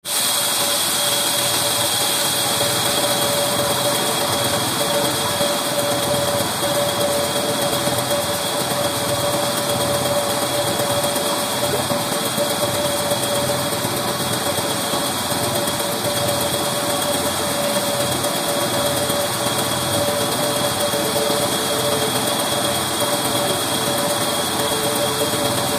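Large band saw running steadily, with a constant whine and no change in load; no cut is being made.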